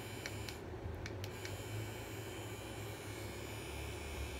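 Handheld electric facial brush massager vibrating gently against the cheek with a low, steady hum. A few faint ticks come in the first second and a half.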